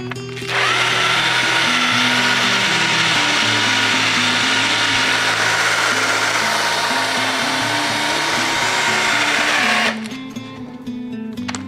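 Small handheld power tool running steadily on a wooden arrow shaft with a high, even whine. It starts about half a second in and winds down to a stop near the end.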